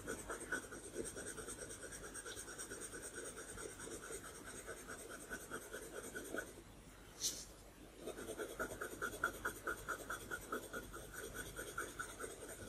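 Coloured pencil scratching across paper in quick, even strokes, about four or five a second, as colour is laid down. The strokes stop for a moment about six and a half seconds in, with a single short click in the gap, then carry on.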